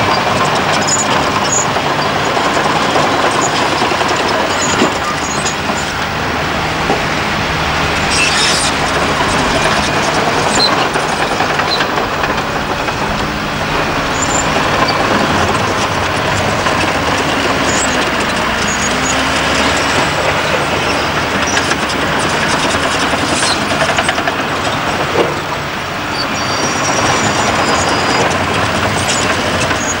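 Heavy diesel earthmoving machinery at work, a motor grader and a large off-road dump truck: engines running with continuous rattling and clanking.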